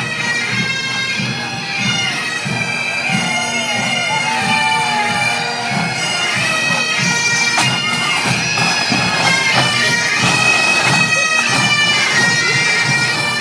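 Scottish Highland bagpipes playing a tune over their steady drone.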